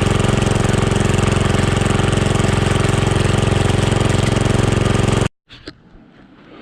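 Power King garden tractor engine running steadily while plowing snow. It cuts off abruptly about five seconds in, leaving only faint background sound.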